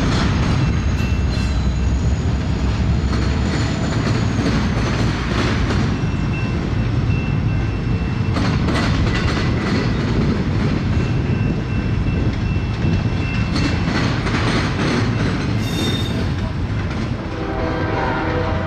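CSX diesel freight train passing close by. The locomotives are followed by double-stack container cars, with a steady rolling rumble of wheels, clicking over rail joints, and thin high squeals from the wheels that come and go.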